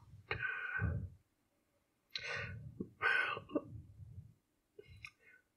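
A person's quiet, breathy voice: four short, soft spurts of murmured sound or exhaling, much quieter than the talk around it.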